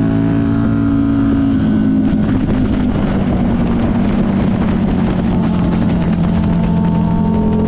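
Buell 1125CR's 1125cc V-twin engine running under way on the road. Its note holds steady at first, turns rougher for a few seconds in the middle, then settles into a steady, slightly falling note near the end.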